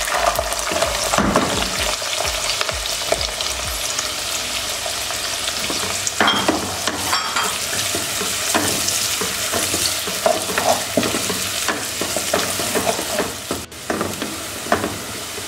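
Chopped onions sizzling as they fry in hot oil in an aluminium pressure cooker, stirred with a wooden spatula that scrapes against the pot. The onions are tipped into the oil at the start.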